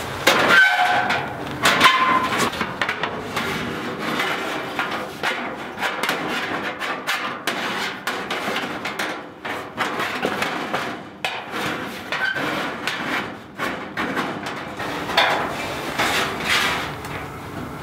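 Galvanized steel nest box and its loose sheet-metal back panel clanking, scraping and knocking as the panel is worked into place, with a brief metallic ring near the start.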